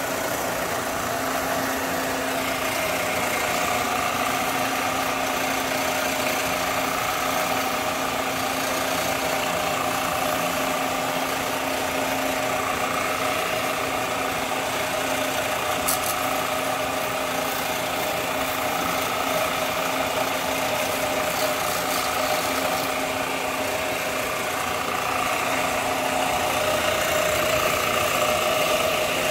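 A motor or engine running steadily, a constant hum over a noisy whir, growing a little louder near the end.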